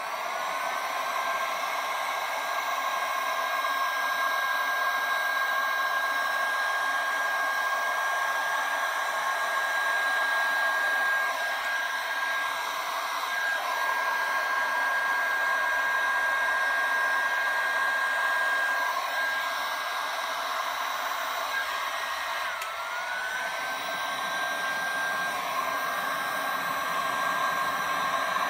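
Electric heat gun running steadily, its fan whine and hot-air rush blowing over wet resin, after rising to full speed in the first second. About two-thirds of the way through, the whine dips briefly in pitch and climbs back.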